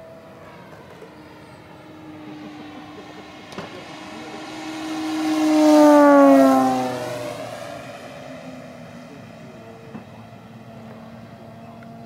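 Electric radio-control AT-6 Texan model, an AXI 5338 motor on 12 cells spinning a fat-tipped 20x10 Master Airscrew propeller, making a fast low fly-by. The propeller's pitched drone swells to its loudest about six seconds in, then drops in pitch as the plane passes and fades away.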